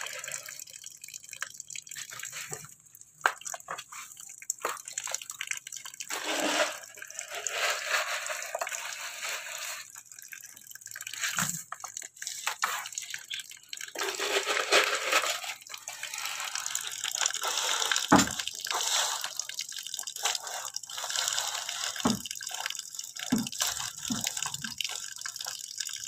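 Tap water running and splashing into a plastic bucket onto a bed of wet filter material. The splashing comes and goes, with a few short knocks.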